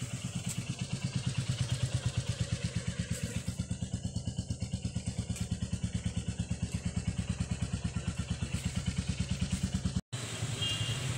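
Motorcycle engine idling with a fast, even beat, breaking off for an instant near the end.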